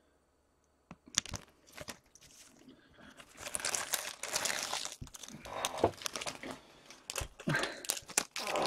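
Foil trading-card pack wrapper crinkling and crackling as it is handled, starting about a second in.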